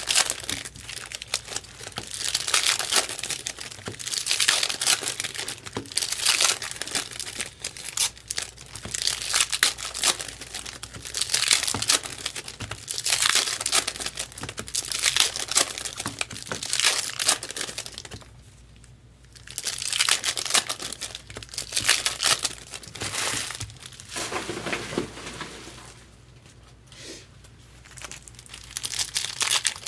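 Foil wrappers of Topps Chrome baseball card packs crinkling and tearing as packs are ripped open and handled, in repeated bursts. The handling pauses briefly a little past halfway and eases off again near the end.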